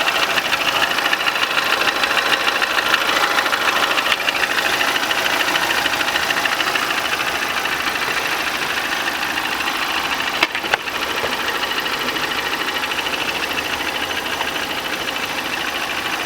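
Warm car engine idling with a fast, steady ticking noise over its running. This is the extraneous noise that, according to the owner, appears only once the engine is warm, while the engine runs quietly when cold. There is a brief dip with a couple of clicks about ten and a half seconds in.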